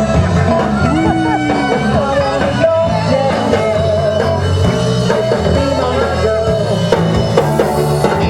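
Live rock-and-roll band playing loudly, with drum kit and electric guitar carrying a steady beat.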